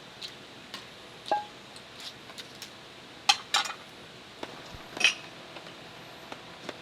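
Camp cookware and utensils clinking and knocking together: a scatter of sharp clinks, some briefly ringing, the loudest a pair about three and a half seconds in and another about five seconds in.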